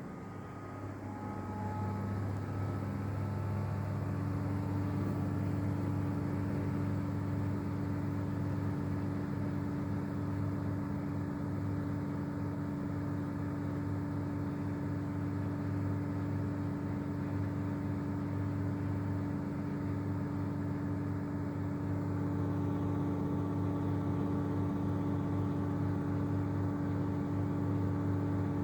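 Whirlpool FSCR90425 washing machine on its 1000 rpm spin cycle: the drum and motor speed up over the first few seconds with a rising whine, then spin steadily with a deep hum and a steady whine. It gets a little louder again about 22 seconds in.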